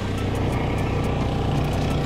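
Small gasoline engine of an HRC665 crawler hammer knife mower running steadily.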